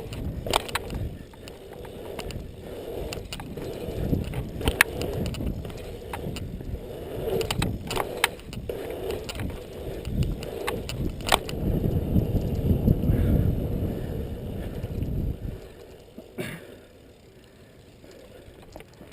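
BMX bike being ridden on a dirt track: a rough rumble of wind and tyre noise, with scattered sharp clicks and rattles. The rumble stops about three-quarters of the way through, leaving only faint hiss and one more click.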